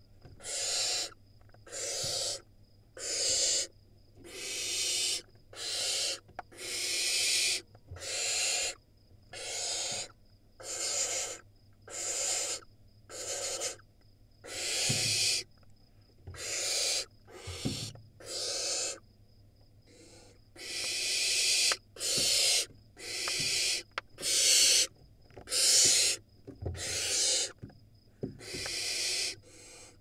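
Barn owl nestlings screaming: a steady run of harsh, hissing screeches, about one a second and each under a second long. The screams are aimed at a sibling that has reached the nest box entrance.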